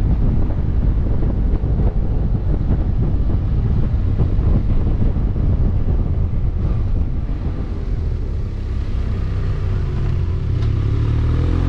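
Wind buffeting the microphone over the steady running of a BMW F800GT motorcycle's parallel-twin engine. Near the end the engine note rises as the bike accelerates out of a tight bend.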